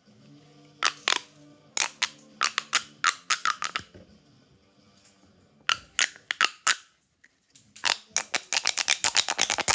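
Small plastic fidget toy being worked by hand, giving sharp clicks in uneven clusters, then a fast run of rapid clicks near the end.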